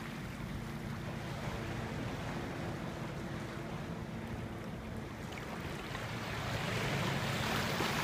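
Shallow seawater surging and washing over rocks, swelling louder about six and a half seconds in, with a faint steady low hum underneath.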